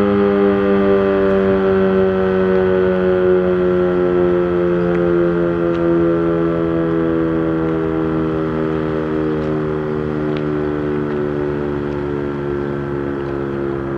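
Dual-tone 8/16-port Sterling Model M outdoor warning siren winding down at the end of its attack cycle. Its two-note wail falls slowly and steadily in pitch and eases in volume as the rotor coasts down.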